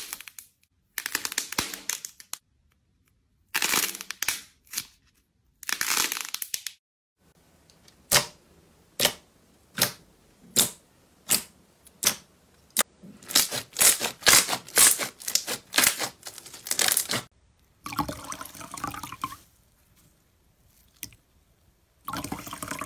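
Hands squeezing and pressing slime and a squishy toy, making bursts of crackling and squishing. Through the middle comes a run of sharp pops about every three-quarters of a second as fingers press into glossy pink slime and burst its air pockets.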